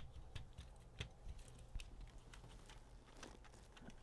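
Faint, scattered light clicks and taps of small plastic parts being handled, as the A/C control board's connector and panel pieces are fitted, over a low room hum.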